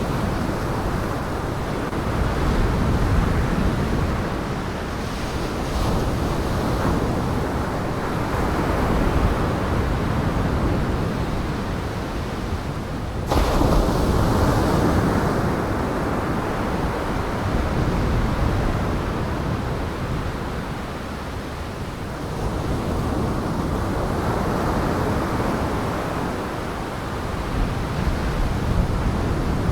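Storm surf on Lake Michigan rushing and breaking, swelling and ebbing every few seconds, with high wind buffeting the microphone. The sound cuts abruptly to a louder stretch about 13 seconds in.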